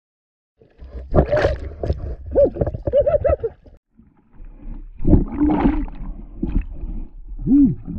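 Sound picked up by a camera held underwater in shallow sea: muffled rumbling and gurgling of water, with a snorkeler's muffled voice sounds rising and falling in pitch. It starts about a second in and comes in two bouts, with a short lull in the middle.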